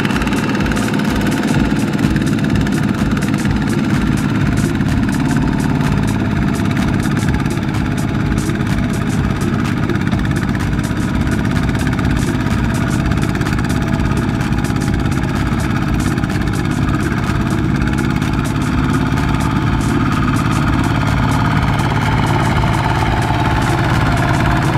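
Two-wheel walking tractor's single-cylinder diesel engine chugging steadily under load as it hauls a loaded trailer through deep mud.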